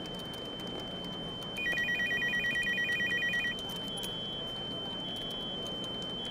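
Electronic telephone ringing: a fast two-note trill lasting about two seconds, over a steady high-pitched whine. Short faint beeps follow about once a second.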